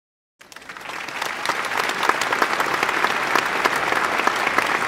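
Audience applause, fading in about half a second in and growing to steady, dense clapping by about two seconds in.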